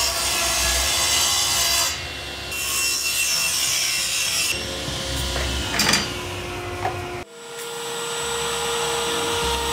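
Table saw cutting a rabbet along coconut palm strips, the blade's loud hiss dropping and returning between passes. About seven seconds in it cuts off sharply and a steady hum carries on.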